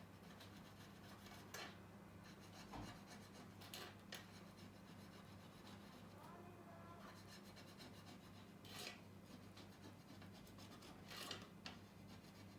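Faint, brief scrapes of a small hand tool against an iPhone 8 Plus's metal housing, a few separate strokes over a steady low electrical hum.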